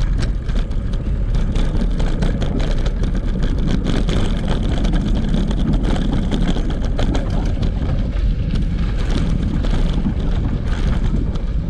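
Steady wind noise on the microphone mixed with many small clicks and rattles from a bicycle rolling over a wooden footbridge and then onto a dirt trail partway through.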